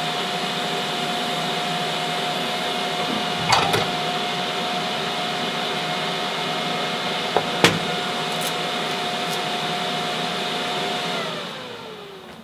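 An electric motor, such as a fan, running steadily with a constant whine, then switched off about eleven seconds in, its pitch falling as it spins down. Two light knocks about three and a half and seven and a half seconds in.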